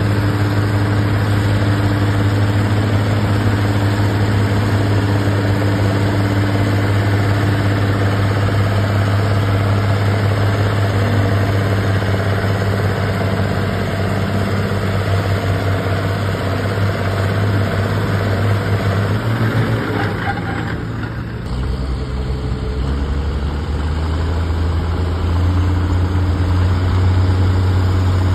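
Allis-Chalmers farm tractor engine running hard under load as it pulls a weight-transfer sled, a steady low drone. About two-thirds of the way through, the engine note drops lower and dips briefly, then swells again near the end.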